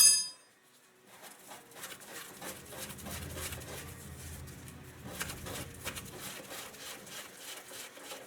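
Light, irregular metallic clicks and scraping of a hand tool working a loose castle nut off a steering-linkage stud.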